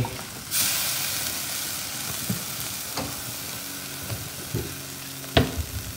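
Chayote tops and beef sizzling in a stainless steel wok while a metal spoon stirs them; the sizzle surges about half a second in and then eases. The spoon knocks against the wok twice, the sharpest near the end.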